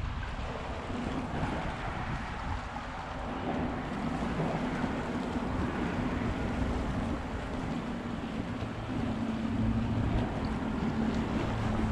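Wind on the microphone over small waves washing against the rocks of a seawall, with a low steady hum joining in partway through and growing stronger near the end.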